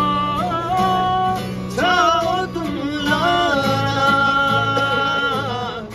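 Background music: a song with a singer holding long, wavering notes over plucked-string accompaniment.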